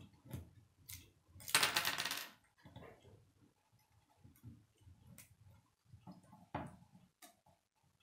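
K'nex plastic rods and connectors clicking and snapping together under the fingers during hand assembly, with a louder clatter of plastic pieces about a second and a half in.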